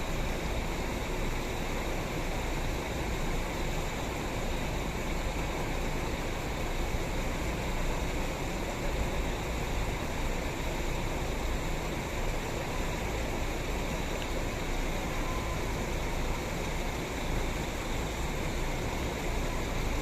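Steady rushing noise of heavy rain, with a low vehicle rumble underneath.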